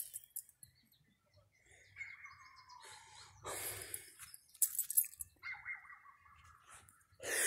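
Two short, high animal calls, each falling in pitch, about two seconds and five and a half seconds in, with brief bursts of noise between them.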